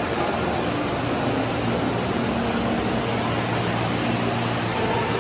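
Steady ambient din of a busy indoor shopping concourse, with faint murmur of people talking.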